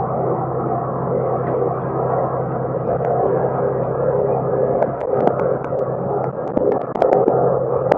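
Tractor engine running steadily while pulling a square baler, with irregular sharp clicks from about five seconds in.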